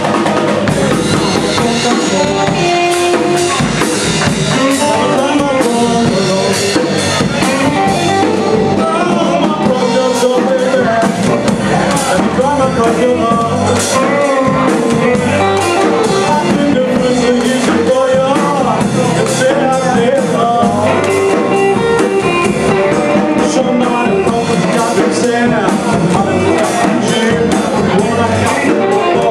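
Live blues band playing through amplifiers: electric guitar, bass guitar and drum kit, loud and steady, with a guitar line that bends and wavers in pitch.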